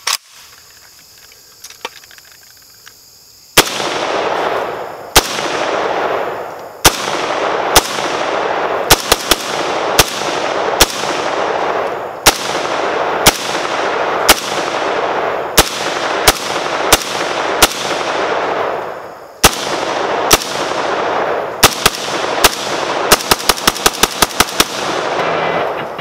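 AK-pattern rifle firing a full magazine. After a few seconds of quiet, single shots come at about one a second, each with a long echo rolling off behind it; near the end comes a quick string of shots.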